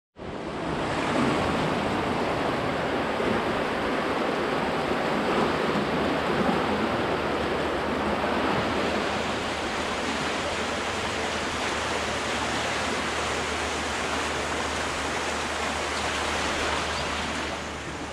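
The Orange River in flood, its fast brown water rushing steadily past the concrete piers of a railway bridge.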